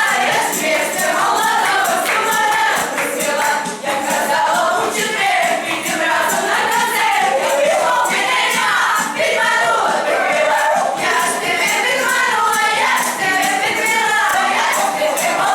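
A group of voices singing a song together, accompanied by a steady tambourine beat.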